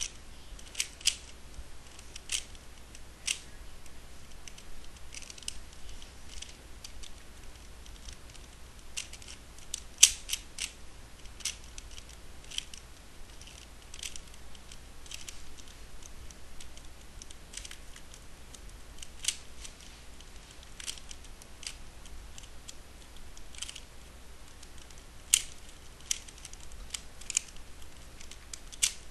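Guhong 3x3 speedcube being turned one-handed during a solve: irregular plastic clicks and clacks of the layers turning, with pauses between bursts and one loud clack about ten seconds in.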